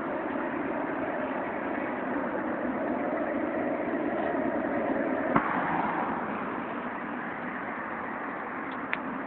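Road traffic noise from passing cars, swelling to a peak about halfway through and easing off. A sharp click about five seconds in, and a smaller one near the end.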